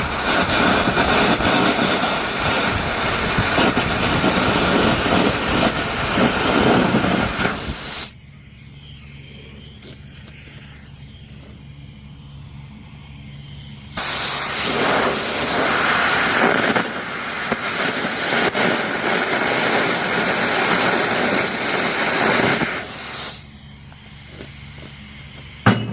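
Air carbon arc gouging: the arc and compressed-air jet blasting molten steel out of a drum's teeth make a loud, harsh hiss in two long runs of about eight seconds each, each cutting off abruptly. Between the runs there is only a low steady hum, and a short burst comes right at the end.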